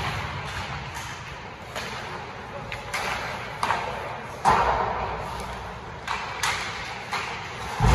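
Ice hockey play in an indoor arena: sharp clacks of sticks on the puck, with the noise of skates on the ice, echoing off the rink. About seven knocks are scattered through, the loudest about four and a half seconds in.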